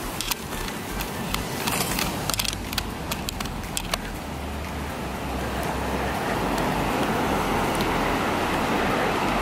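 Palm fronds rustling and crackling as they are brushed aside for the first few seconds, then the steady rush of ocean surf, slowly growing louder.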